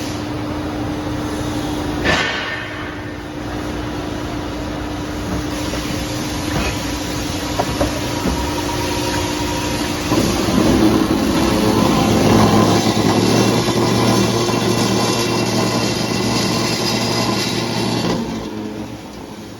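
CNC mitering cold saw running under power with a steady machine hum. There is a sharp knock about two seconds in. From about halfway through, it runs louder and noisier for some eight seconds, then drops off near the end.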